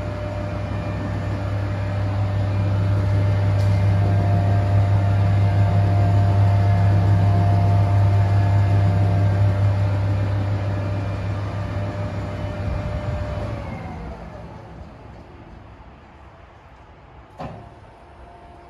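K+G Wetter MAW D 114 mixing grinder running empty, a steady electric motor hum with a whine on top. About 13 seconds in it winds down and coasts to a stop. A short click comes near the end.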